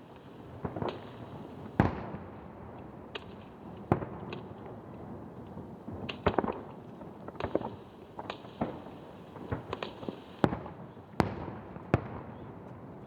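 Aerial firework shells bursting in an irregular series of sharp bangs, about a dozen, some followed by a short fading echo.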